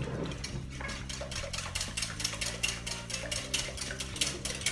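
Hand wire whisk beating eggs and yogurt in a glass bowl, its wires clicking against the glass in a quick, steady rhythm of about four to five strokes a second.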